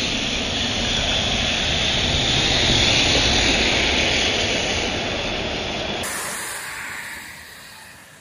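New Flyer XDE40 diesel-electric hybrid city bus passing close by and pulling away, its drivetrain and tyres on the wet road giving a steady hiss. Loudest about three seconds in, then fading as it drives off.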